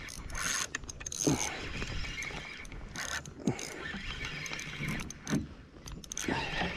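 Fishing reel being cranked against a biting fish, its gears clicking and whirring, with a few short falling squeaks.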